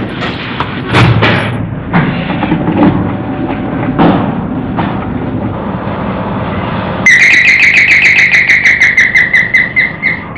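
Dull knocks and shuffling, then about seven seconds in an electric doorbell starts ringing: a loud, rapid trilling bell tone that runs for about three seconds.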